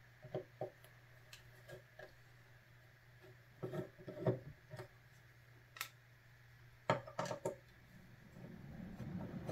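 Screwdriver backing out the receiver screws of a Daisy 922 air rifle: scattered faint clicks and scrapes of the tip in the screw heads, bunched in small clusters.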